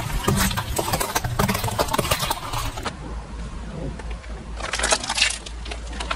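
A car tyre rolling over hollow plastic toys, with a rapid run of plastic cracking and crunching for about three seconds. Then, over a low steady rumble from the car, a plastic margarine tub cracks and bursts under the tyre about five seconds in.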